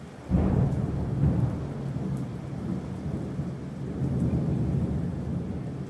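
Deep, thunder-like rumbling sound effect from a played video, heard through loudspeakers in a room; it starts suddenly about a third of a second in and runs on steadily.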